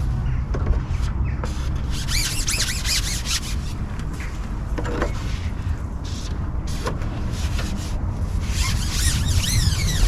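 Wind buffeting the microphone as a steady low rumble, with a squeaky rubbing sound twice, about two seconds in and again near the end, and a few light clicks.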